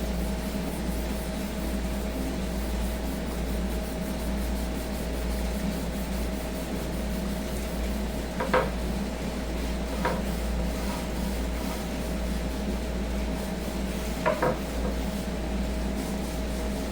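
A hand rubbing oil into a wooden cutting board, over a steady low hum. Brief light knocks come about three times in the second half.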